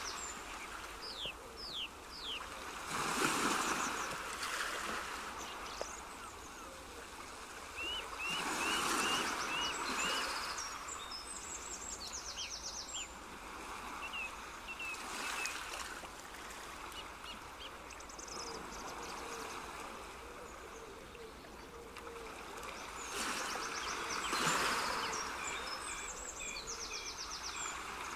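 Outdoor nature ambience: many birds chirping and trilling over a steady rush of water that swells every few seconds.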